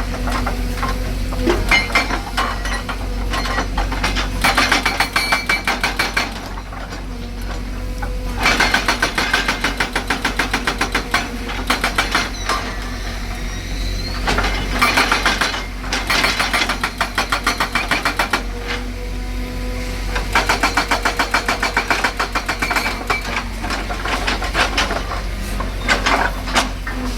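Excavator-mounted hydraulic breaker hammering in bursts of rapid, evenly spaced blows lasting a few seconds each, with short pauses between them. The machine's engine runs steadily underneath.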